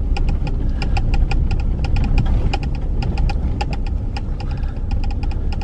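Inside a Ram Rebel pickup's cab on a rough, washboarded dirt road: a steady low rumble of engine and tyres, with frequent rattles and clicks as the truck jolts over the bumps.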